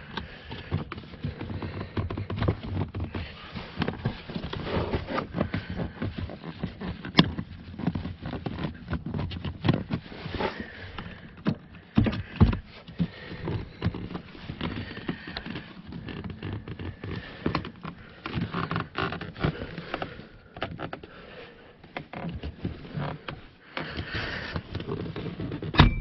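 Plastic seat side trim being worked loose from its clips by hand: irregular clicks, knocks and rustling, with a few sharper snaps.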